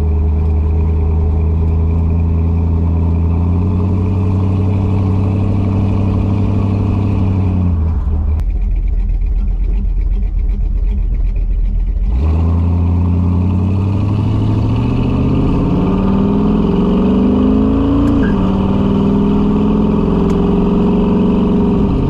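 A 1968 Dodge Charger's V8 running under way, its exhaust sealed with no leaks. The revs climb slowly, drop away to a low rumble about eight seconds in, then rise again in two long climbs with a sharp fall between them, before holding steady near the end.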